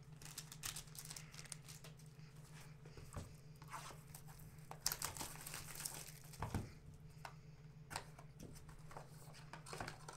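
Faint rustling and crinkling of trading-card packs and foil wrappers being handled, with small clicks and a brief louder rustle about halfway through, over a steady low hum.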